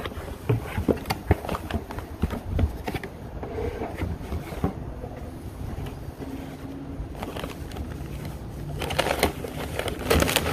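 Cardboard box being opened and handled: scrapes and light clicks of cardboard, then packing paper rustling and crinkling near the end as a hand reaches into the wrapping.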